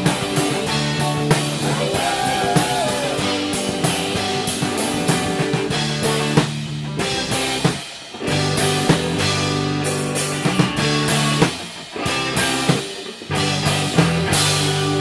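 A band jamming in rehearsal: drum kit and electric guitar playing together with steady drum hits under held chords, the music thinning out briefly twice.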